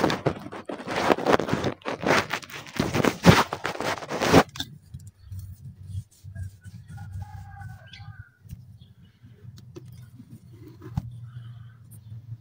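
Dried red dirt (red concrete) being broken up into chunks: a fast run of cracks and crunches for about four and a half seconds that stops suddenly. Afterwards a low steady hum remains, with a short bird call about halfway through.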